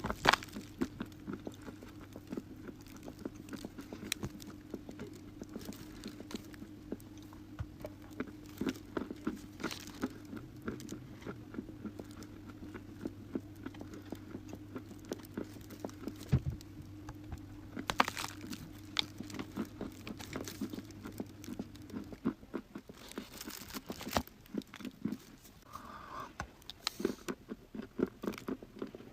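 Dry chalk and clay being bitten and chewed close to the microphone: many sharp, irregular crunches and crackles. A low steady hum sits underneath and stops about three-quarters of the way through.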